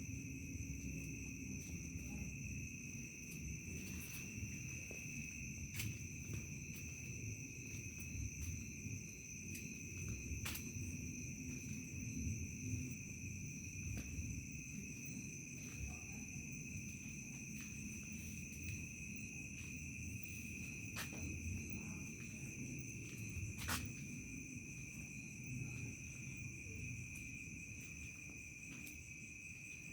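Crickets chirping in a continuous high trill, heard as two steady pitches. A low rumble runs underneath, with a few sharp clicks scattered through.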